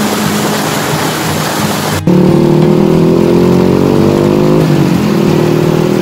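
Water pouring and rushing over a small stone weir. About two seconds in, the sound cuts abruptly to a louder, steady drone of several low held tones, with the rush of water much fainter.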